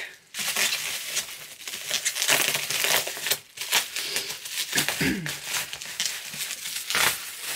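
Plastic bubble wrap crinkling and crackling in the hands as it is pulled off a hardback book, a dense run of sharp crinkles throughout.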